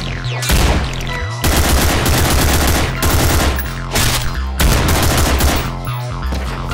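Several long bursts of rapid automatic gunfire sound effects over a music track with a steady bass.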